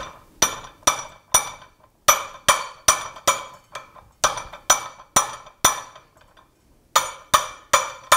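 Hand hammer striking a red-hot steel bar on a steel mandrel, bending it around the post: sharp metallic blows about two a second, in runs of three or four with short pauses and a longer gap near two-thirds of the way in, each with a brief ring.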